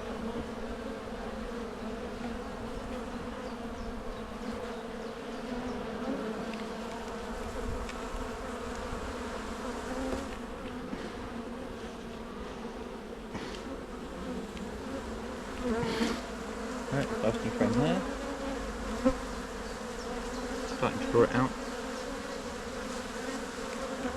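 Honey bee colony buzzing in a steady hum over an opened hive. In the second half a few bees pass close by, their buzz sliding up and down in pitch, with a couple of light knocks.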